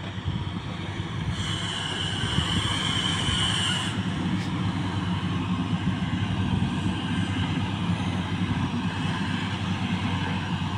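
Motor grader's diesel engine running steadily as it works a dirt haul road, with a high metallic squeal for about two and a half seconds starting a little over a second in.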